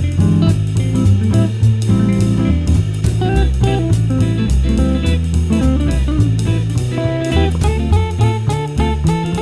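Background music: guitar with a drum kit keeping a steady beat, in a light jazz-blues style.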